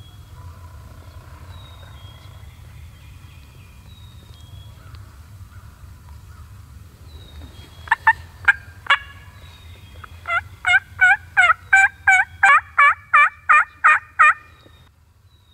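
Turkey yelps: four sharp notes, then about two seconds later a loud run of about a dozen yelps at roughly three a second, which stops abruptly. Faint songbird chirps and a low steady rumble lie under it.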